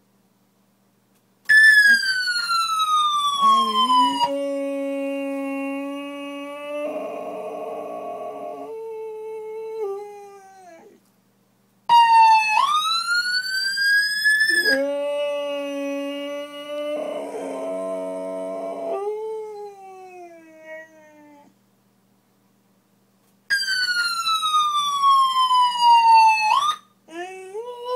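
A siren wail sweeping in pitch, falling, then rising, then falling, sounds three times, and each time a boxer dog answers with a long, lower, wavering howl as he imitates the siren. The last howl starts again near the end.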